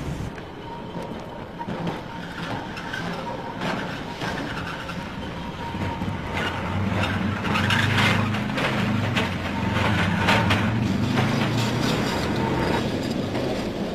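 Street traffic with trams running: a steady rumble that grows louder about six seconds in, with rattling clicks over it.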